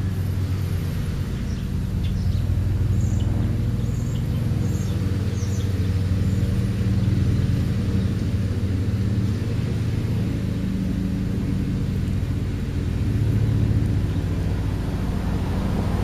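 Steady low rumble of a motor vehicle engine, swelling a little now and then. A few faint, short high chirps come in the first half.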